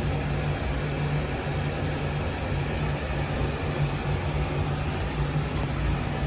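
Steady boiler-room machinery noise: a constant low hum under an even rushing hiss, with no distinct knocks or starts.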